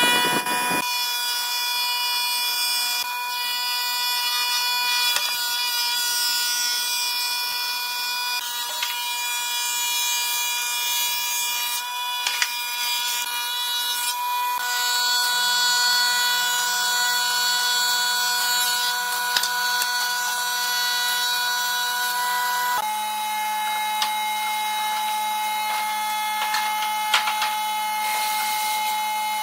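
Industrial thickness planer running and planing wooden boards: a steady, high machine whine whose pitch shifts to a new level a few times, with a few faint knocks.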